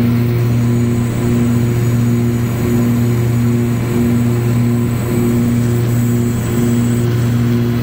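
Cabin drone of a light airplane's engine and propeller in flight, steady and loud, with a deep hum and higher tones that swell and fade in a slow regular beat, roughly twice a second.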